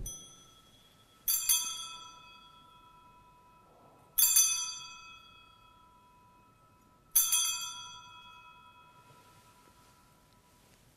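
Altar bell struck three times, about three seconds apart, each stroke ringing out and fading. It marks the elevation of the chalice just after the consecration at Mass.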